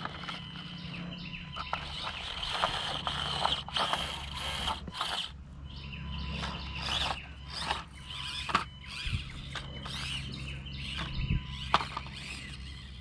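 Axial SCX24 1/24-scale RC crawler driving over rocks: its small electric motor and gears whine, with many clicks and scrapes of the tyres on stone and dry leaves.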